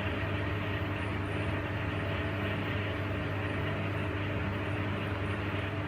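A steady mechanical hum under an even rushing noise, unchanging throughout.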